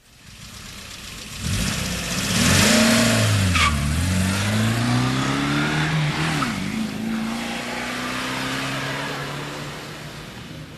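Car engine revving, fading in from silence and growing loud after about a second and a half; its pitch drops and climbs again several times, then the sound eases off near the end.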